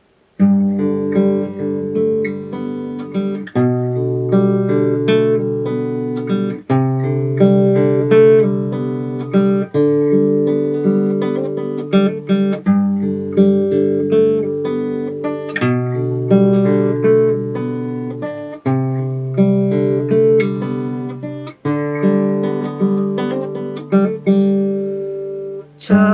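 Acoustic guitar strummed in a steady rhythm, with the chord changing about every three seconds.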